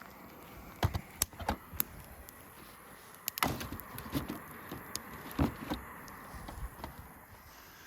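Camp gear and firewood being handled to set up a campfire: a run of sharp clicks and knocks, four in quick succession about a second in and another cluster from about three and a half to six seconds in.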